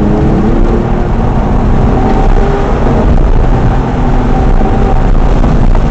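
Porsche Carrera 2S flat-six pulling hard during an autocross run. Its note climbs in the first second or so, then holds, under a heavy low rumble of wind and road noise in the cabin.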